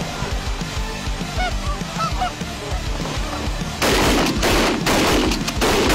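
Canada geese honking as a flock comes in over decoys. From about four seconds in, a rapid string of loud shotgun blasts from several hunters firing at the flock.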